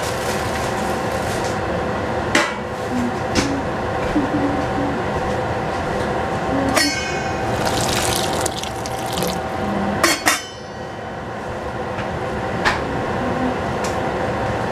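A pot boiling steadily on the stove. About seven seconds in a metal clank is followed by water poured into the boiling pot for a second or two, then two sharp clanks as the vented steel lid is set back on.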